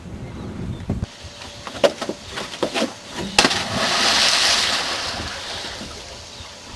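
A body splashing into water: a few knocks, then a loud sudden splash about three and a half seconds in, followed by a rush of churning water that swells and slowly fades.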